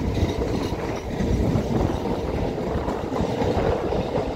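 A pair of Tyne and Wear Metrocars pulling out of the platform and running past, with a steady noise of wheels on rails.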